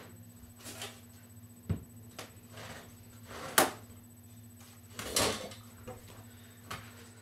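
Thrown objects knocking and clattering over a steady low hum: a dull knock, then a sharp loud crack about three and a half seconds in, and a longer clatter about five seconds in.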